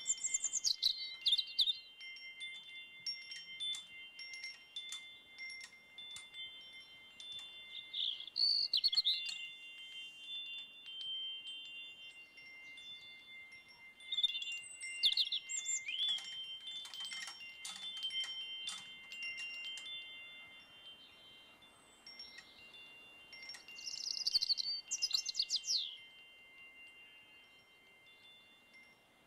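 Metal wind chimes tinkling, with struck notes ringing on as long, steady high tones. Short runs of high, falling chirps come in at a few points, and the chiming fades lower near the end.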